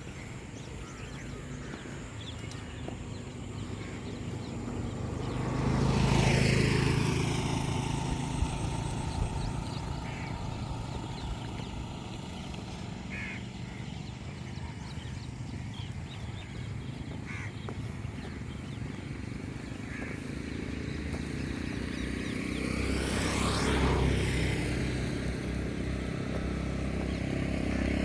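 Two motor vehicles drive past one after the other, each swelling and fading with a sweeping change in pitch as it goes by, the first about six seconds in and the second near the end. A few short faint calls sound between them.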